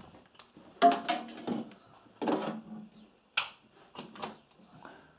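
A series of separate sharp clicks and knocks, about six in all, as the MIG welder is plugged in and its newly fitted on/off switch is tried.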